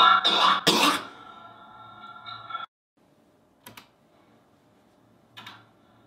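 Two heavily distorted, sped-up coughs, about half a second apart, over a loud steady electronic buzz. The buzz cuts off abruptly under three seconds in, leaving near silence broken by two brief faint blips.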